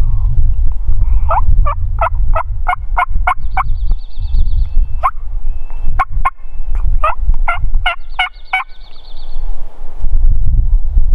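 Merriam's wild turkeys calling close by: three runs of sharp, evenly spaced notes, about five a second. A small bird trills faintly between the runs, and wind rumbles on the microphone.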